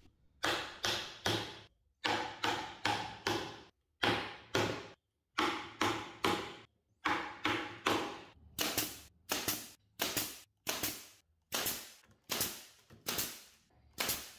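A hardwood mallet tapping glued dowels down into drilled holes in a plywood board: about thirty sharp wooden knocks, in short runs of three or four, coming a little faster and more evenly in the second half.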